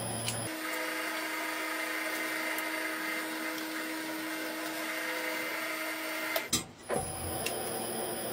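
Twin-shaft shredder running with a steady motor whine; about half a second in its low hum shifts to a higher, steady tone. A single sharp knock with a brief drop in the sound comes near the end.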